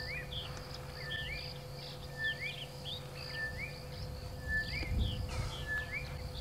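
Bush ambience: a bird repeats a short two-part call about once a second, a flat note followed by a rising-and-falling one, over a steady high insect buzz. A short low burst of noise comes about five seconds in.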